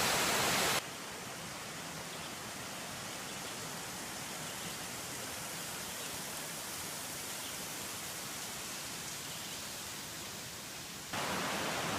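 Steady rush of creek water tumbling over rocks. It is louder for the first second, drops suddenly to a lower steady level, and comes back louder near the end.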